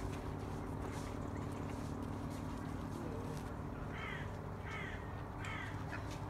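A crow cawing in a series of short calls in the second half, about one every three-quarters of a second, over a steady low mechanical hum.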